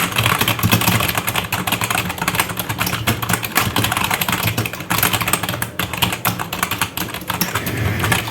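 Evo Fox FireBlade gaming keyboard being typed on quickly, a steady stream of key presses, many each second.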